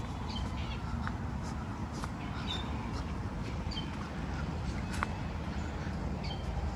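Outdoor ambience: birds give short, scattered high chirps over a steady low rumble, with a few sharp clicks.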